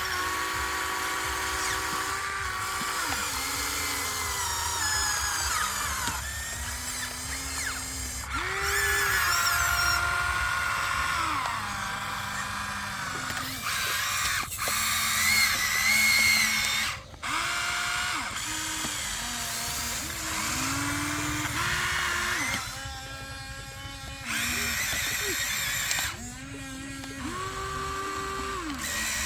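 Small electric gear motors of a toy excavator whining in short runs, each spinning up to a steady pitch and then stopping or changing speed.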